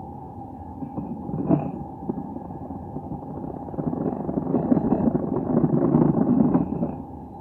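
Pasta machine running with a steady hum. There is a sharp click about a second and a half in, then a louder rough rattling from about four to seven seconds in.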